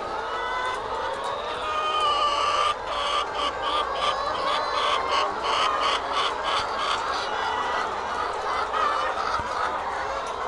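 A large flock of caged brown laying hens calling over one another in a steady, overlapping din. A fast rhythmic run of short, sharp sounds stands out between about three and seven seconds in.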